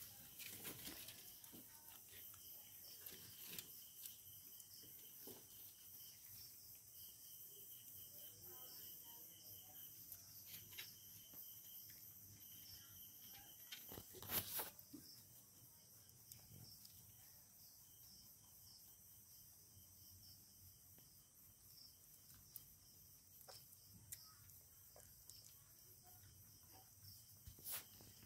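Near silence: insects chirring faintly and steadily, with a few soft rustles and one sharp click about halfway through.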